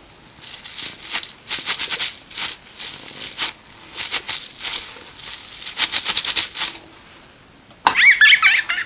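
A rattle shaken in short bursts of quick sharp strokes, the sound of small beads or pellets hitting inside a shaker. About 8 seconds in, a loud high warbling squeal starts.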